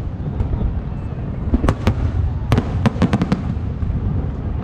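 Aerial fireworks going off: a continuous low rumble of bursts, with three sharp cracks between one and a half and two seconds in, then a quicker run of five cracks around three seconds in.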